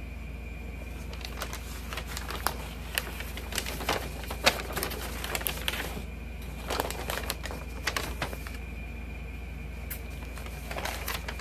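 Paper rustling and crinkling as a thin newsprint booklet is handled and its pages turned, in short irregular crackles.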